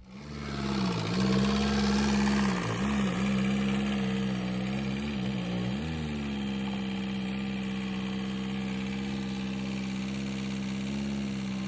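Car engine idling, its pitch dipping and wavering several times in the first six seconds, then running steady.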